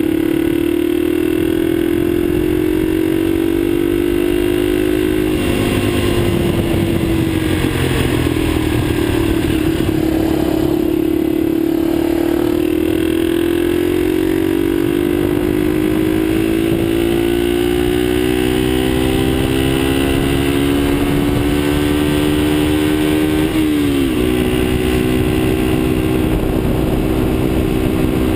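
Motorcycle engine running on the move, its note slowly climbing as it accelerates and falling back twice, about five seconds in and more abruptly near the end, as it shifts up a gear. Wind noise rushes underneath throughout.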